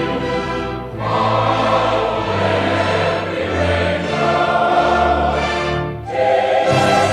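A choir singing long, held notes in phrases, with short breaks between phrases about a second in and again about six seconds in.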